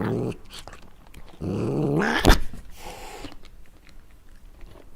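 A cat growling low over its food: a short growl at the start, then a longer one about a second and a half in that rises in pitch and ends in a sharp click. Faint clicks of chewing follow.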